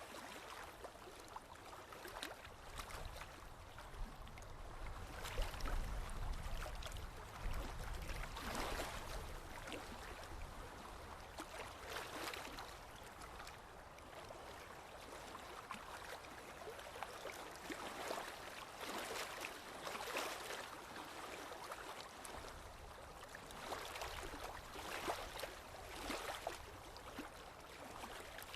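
Forest river water rushing and splashing steadily, with irregular louder splashes every second or two and a low rumble at times.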